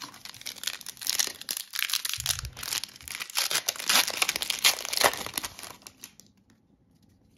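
Foil wrapper of a hockey-card pack being torn open and crinkled in the hands, a dense crackling that stops about six seconds in.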